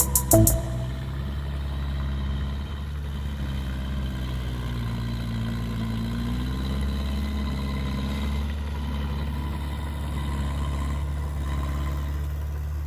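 Diesel engine of heavy construction machinery running steadily, its pitch sagging slightly and coming back up around the middle.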